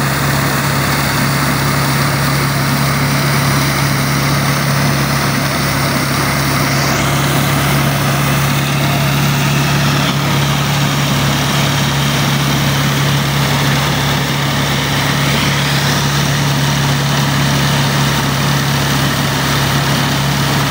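Diesel tractor engine running steadily at working speed, driving a PTO-powered maize sheller whose drum adds a dense whirring rattle as corn cobs are fed through.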